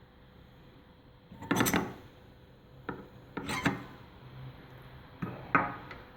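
Coffee grinder giving three short rasping bursts about two seconds apart, with a few lighter clicks between them.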